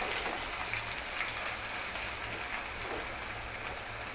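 Sliced onions frying in hot oil tempered with cumin, mustard and nigella seeds in a kadhai: a steady sizzle with scattered small crackles.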